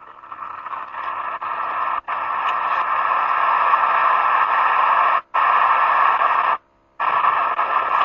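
Loud, steady static hiss with no speech in it, cutting out abruptly for a moment about two seconds in, again a little after five seconds, and for nearly half a second about a second before the end.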